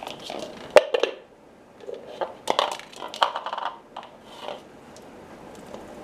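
Plastic bowl clattering and scraping on a tile floor as a parrot knocks it about, in two bursts of sharp knocks: one about the first second and another from about two and a half to nearly four seconds in.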